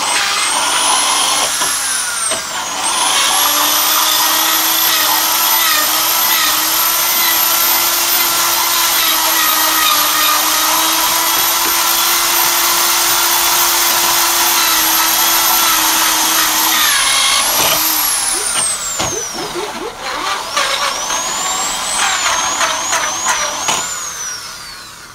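Corded electric drill running at full speed with its bit in a hole in a wooden block, being wiggled around to widen the hole. The motor speeds up at the start, holds a steady whine and winds down about 18 seconds in. It then runs again in shorter, uneven revs and stops near the end.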